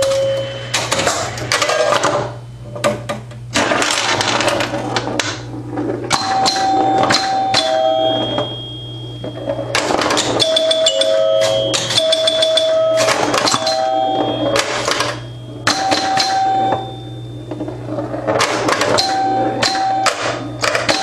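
1974 Bally Champ electromechanical pinball machine in play: its score chimes ring in quick runs of bell tones while relays, stepper units and solenoids click and clack. A steady low hum runs underneath.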